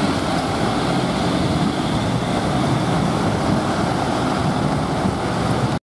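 Motorcade cars and SUVs driving past at close range: a steady wash of engine and tyre noise that cuts off suddenly near the end.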